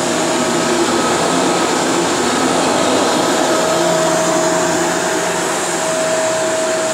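Shark Powered Lift-Away upright vacuum cleaner running on carpet: a loud, steady motor whine over the rush of air.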